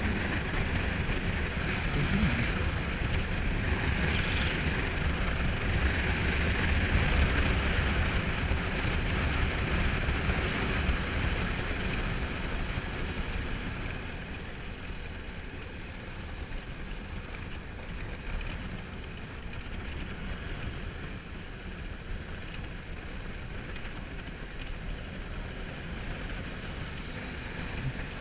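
Motorcycle running on an off-road ride, its engine mixed with wind rushing over the microphone; the noise eases somewhat about halfway through.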